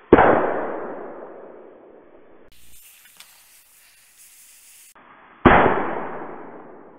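Two small firecrackers bursting inside eggs, played back slowed down: each is a sudden deep bang that fades out over about two seconds. The first comes right at the start and the second about five seconds later.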